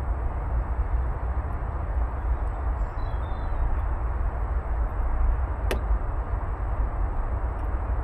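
Vaillant aroTHERM Plus 7 kW air-source heat pump outdoor unit running, a steady low rumble and whoosh, with a single sharp click about two-thirds of the way through.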